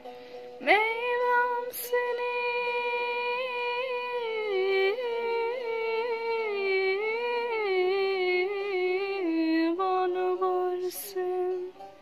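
A woman singing without words: one long held note from about a second in, then ornamented, wavering notes that slide down in pitch, fading out near the end.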